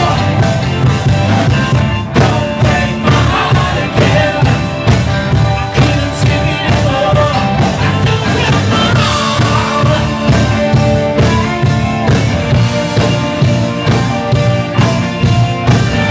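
A live rock band playing electric guitars, bass guitar, drum kit and keyboards, with a lead singer singing over a steady beat.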